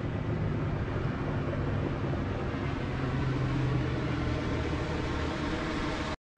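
Motorboat engine droning steadily across the lake, over the wash of wind and water at the shore; it cuts off suddenly near the end.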